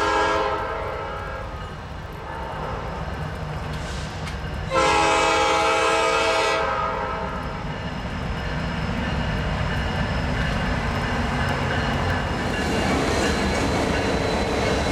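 Norfolk Southern diesel freight locomotives sounding their multi-chime air horn at a grade crossing: a short blast at the start and a longer one about five seconds in. The locomotives' engines and wheels on the rails then run past close by, growing louder toward the end.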